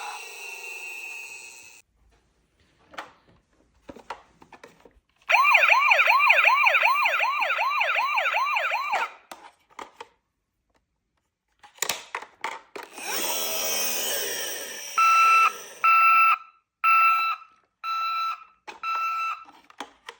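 Toy emergency vehicle's electronic sound module: a few clicks, then a fast warbling siren for about four seconds. After some more clicks there is a noisier sound effect, then five evenly spaced beeps near the end.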